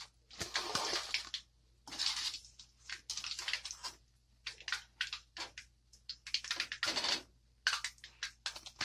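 Hot oil sizzling and crackling around urad dal fritters over high heat as a wire spider skimmer scoops them out, with irregular sharp crackles and several louder rushes of sizzling lasting about half a second to a second.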